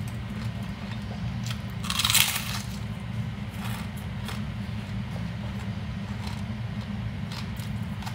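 A person chewing a crunchy salad and cracker with her mouth closed, with one loud crunch about two seconds in and smaller crunches after it.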